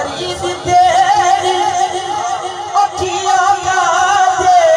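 A singing voice drawing out long, wavering held notes, amplified through a stage sound system, moving to new notes about three seconds in.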